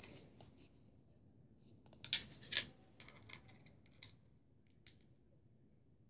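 Plastic packaging handled out of sight: a few sharp crinkles and clicks about two seconds in, then scattered small ticks over the next two seconds and one more near the end.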